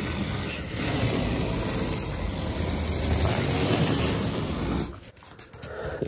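Masking tape being peeled off the freshly painted foam blank of a surfboard in one long steady pull, stopping about five seconds in.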